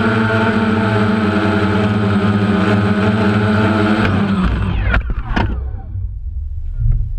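DJI Phantom quadcopter's motors and propellers buzzing steadily in flight, heard through the GoPro mounted on it. About four seconds in the buzz falls away in a downward whine as the motors spin down on touchdown, with a couple of sharp knocks; uneven low rumble and scattered knocks follow.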